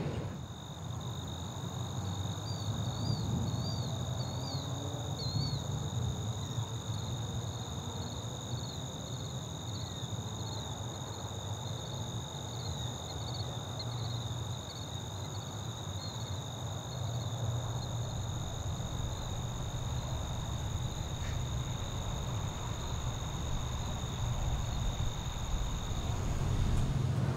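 Night ambience of crickets trilling steadily, with a low rumble underneath.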